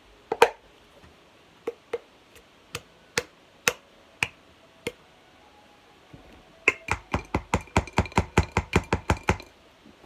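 Wooden stirring stick knocking against a container while scraping out slime ingredients: a few scattered taps, then a quick run of about six taps a second near the end.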